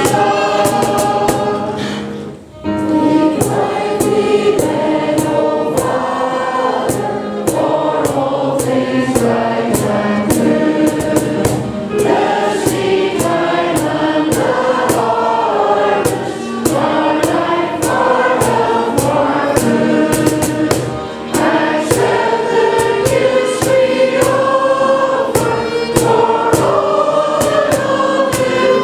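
Many voices singing a hymn together, with a brief pause between phrases about two and a half seconds in.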